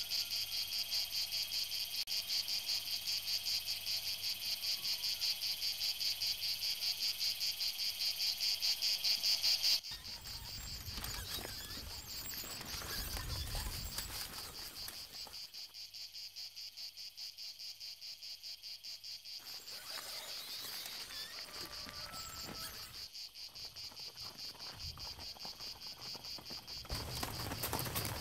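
A dense insect chorus shrilling with a fast, even pulse, loud for the first ten seconds and then fainter after a sudden change about ten seconds in. A louder rustling noise comes in near the end.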